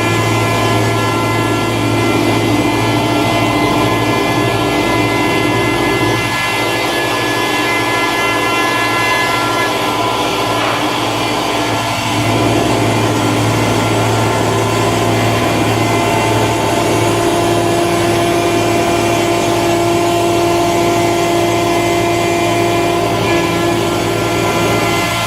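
YL-12242R+B+L-2 CNC woodworking router running at a steady pace, a constant machine hum with several steady tones over a noisy cutting sound.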